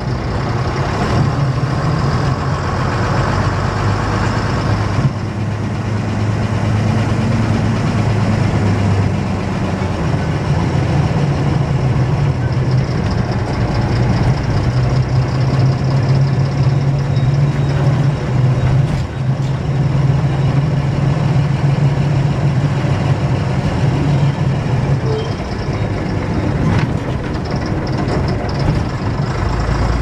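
AEC 9.6-litre six-cylinder diesel engine of an RT double-decker bus running as the bus drives along, heard from the cab; the engine note shifts a few times, changing about five seconds in and dropping about nine seconds in.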